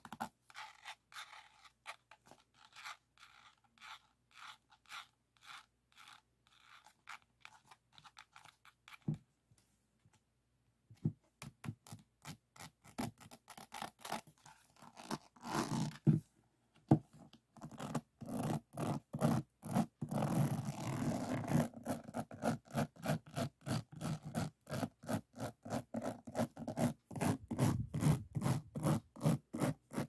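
Fingers scratching and rubbing over the faceted resin drills of a finished diamond painting, in repeated short strokes. The strokes are sparse and soft at first, then come faster and louder from a little past halfway.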